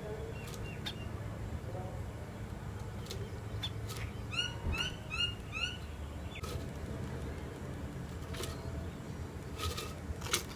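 Sparrow chirping: a quick run of four short, rising chirps about halfway through, with a few faint ticks over a steady low rumble.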